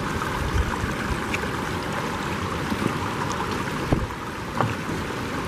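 Wind buffeting the microphone over the steady rush of a shallow river running over rocks.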